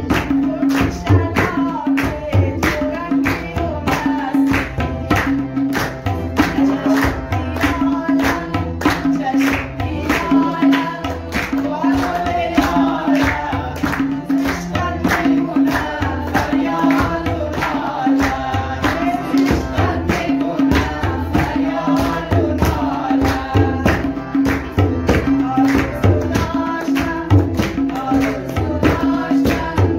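Harmonium and tabla playing a song: a steady tabla rhythm, with the ringing pitched strokes of the small right-hand drum and deep bass strokes, under the harmonium's melody.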